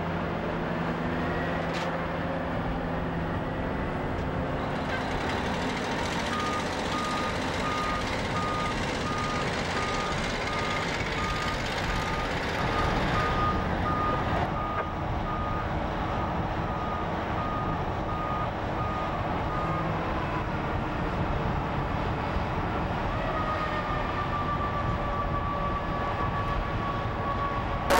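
Heavy construction equipment engines running steadily, with a backup alarm beeping evenly for a stretch in the middle as a machine reverses.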